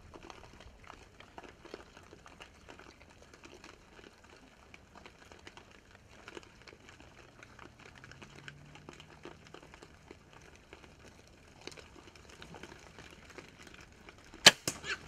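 Faint scattered crackling and ticking, then near the end a single loud sharp crack of a bow shot at a feral hog, followed quickly by two smaller knocks.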